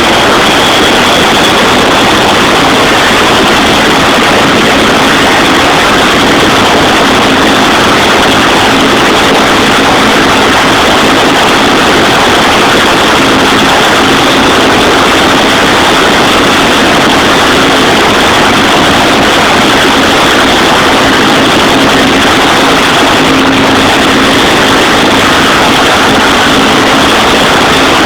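Helicopter running close by: a loud, steady engine noise with a high whine and a low hum held level throughout.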